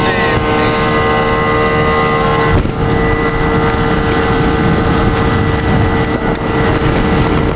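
Motorboat engine running steadily with a constant droning tone, mixed with wind buffeting the microphone and water rushing past the hull.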